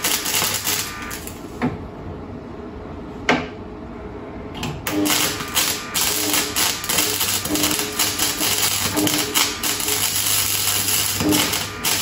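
Parkside welder's arc crackling and spitting against the Golf's sill steel, over a steady hum. The crackle stops about 2 s in, with one sharp click during the pause, and starts again about 5 s in.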